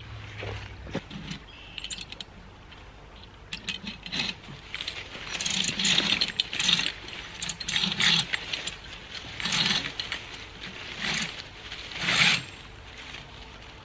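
Board sled loaded with a concrete block being dragged by rope over dry leaf litter and dirt in a series of tugs, each a rustling scrape, about one every second or so, the last the loudest.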